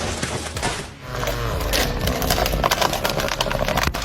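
Wood cracking and knocking: a quick run of sharp clicks and snaps over a steady noise, after a short break about a second in.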